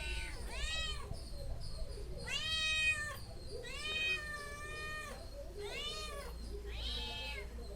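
Domestic cat meowing five times, each meow rising and then falling in pitch.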